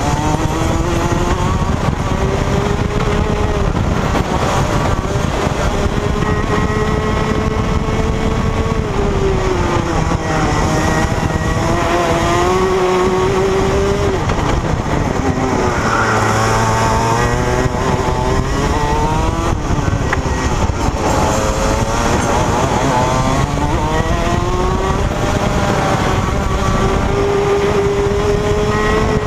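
Rotax Max 125cc two-stroke single-cylinder kart engine at racing speed, heard from the driver's seat: the revs climb along each straight and drop into each corner, several times over, with a steady rushing noise underneath.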